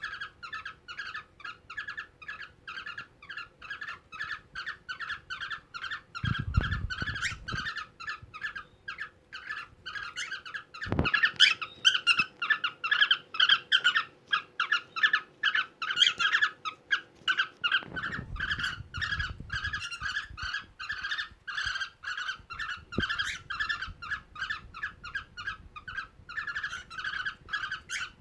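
Cockatiel giving a fast, even series of short squeaky chirps, about three a second, the chirping call of a male cockatiel while mating. A few low bumps and one sharp knock about eleven seconds in.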